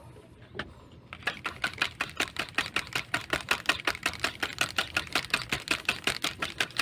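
Daiwa spinning reel clicking rapidly and evenly, about seven clicks a second, starting about a second in.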